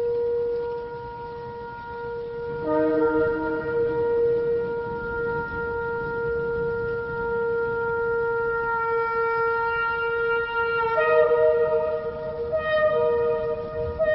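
Shofar sounding long, steady held notes, several pitches overlapping; the upper notes change about three seconds in and again about eleven seconds in.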